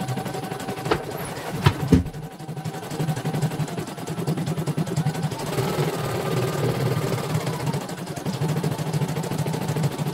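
CNY portable computerised embroidery machine stitching out a design: a fast, even run of needle strokes as the hoop steps the fabric, with a few sharp clicks in the first two seconds. It is a test run of the machine after servicing.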